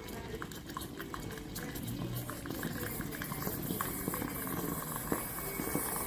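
Espresso machine running, with steady steam hissing and many small crackling sputters.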